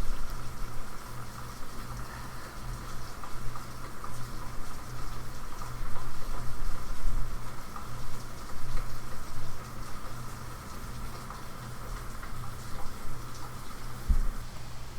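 Steady rain falling, a continuous wash of rain with no voice over it.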